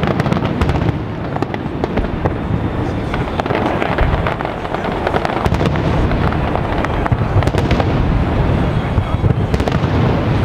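Aerial fireworks shells bursting in quick succession, a continuous run of bangs and crackle with no pause.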